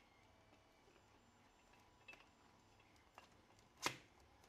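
Near silence broken by a few faint clicks as 3D-printed plastic tank track parts are handled, with one sharper click near the end.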